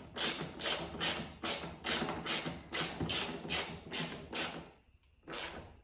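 Hand ratchet wrench being worked back and forth to tighten a headlight mounting bolt, about a dozen quick rasping strokes, then a short pause and one last stroke near the end.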